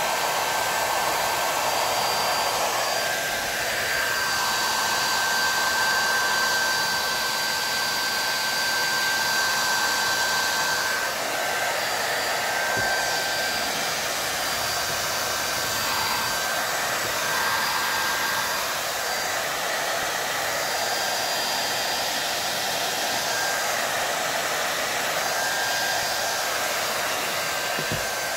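Philips Sensor Care hair dryer running steadily: a rush of air with a high whine, its tone shifting as the nozzle is moved along a tablet's metal back to heat it.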